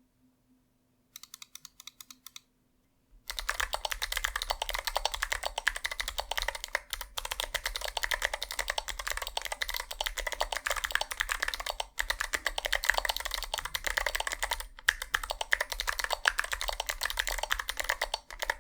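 Typing test on a mechanical keyboard with Kailh Box Jade clicky switches, whose click bars give a loud, sharp click on every keystroke. A short, quieter run of keystrokes comes about a second in, then continuous fast typing from about three seconds in, broken by a few brief pauses.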